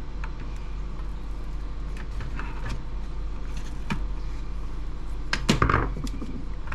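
Handling of a plastic laptop docking station during disassembly: scattered light clicks and taps, with a louder clatter of knocks about five and a half seconds in, over a steady low hum.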